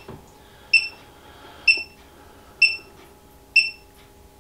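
Egg incubator's temperature alarm beeping: a short, high-pitched beep about once a second, four times. It sounds because the temperature inside has dropped below the alarm setting after the door was opened.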